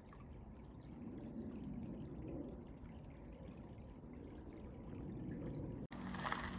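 Faint running water trickling steadily.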